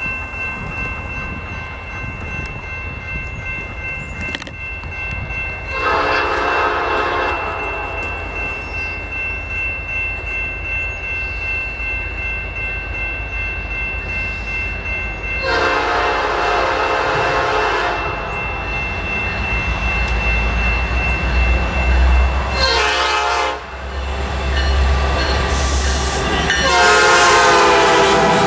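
Diesel freight locomotive air horn on the lead SD70M-2 blowing the grade-crossing signal as the train approaches: a long blast, a second long blast, a short one, then a final long blast. Under the horn the rumble of the diesel engines and wheels builds as the locomotives draw up and pass.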